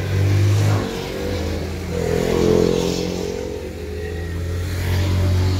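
A motor vehicle's engine running steadily, its note swelling louder and shifting in pitch around the middle, as when it revs or passes close.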